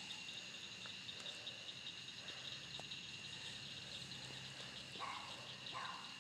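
Nighttime insect chorus: a steady high-pitched chirring drone with a fast pulsing trill layered over it, and a couple of brief, lower sounds near the end.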